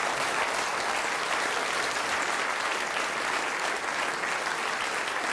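A theatre audience applauding: dense, steady clapping from many hands.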